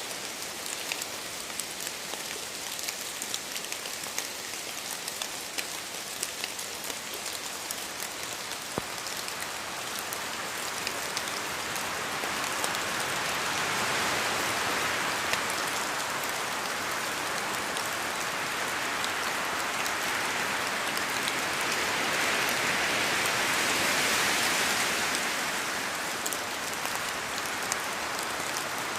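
Rain falling in a forest, with many individual drops pattering down from the trees. A rushing gust of wind in the trees swells up about halfway through and again near the end, then eases off.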